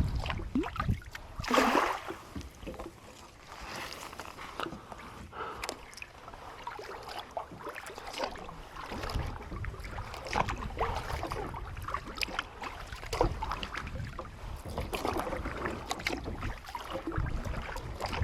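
Kayak paddle strokes splashing and dripping in the water, coming every couple of seconds, the loudest splash about a second and a half in, with a low wind rumble on the microphone at times.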